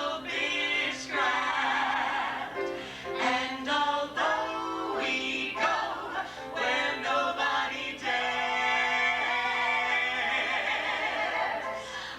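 Cabaret singers performing a show tune together with piano accompaniment, including one long held note about two-thirds of the way through.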